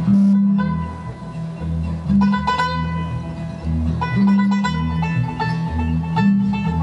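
Bluegrass instrumental break: five-string banjo picking over acoustic guitar, with bass notes alternating underneath at a steady tempo.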